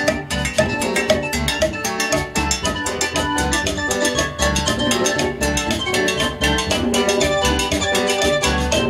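A live Latin dance band playing a quick, steady rhythm: timbales with a jam block and cowbell, congas and an electric bass.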